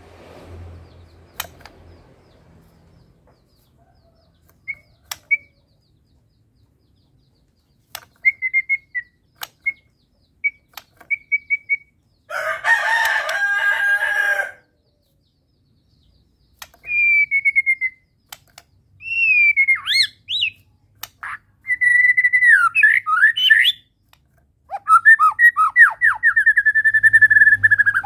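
White-rumped shama (murai batu) singing: scattered short chirps and clicks at first, a harsh two-second phrase about midway, then loud, varied whistled phrases that glide up and down in the second half.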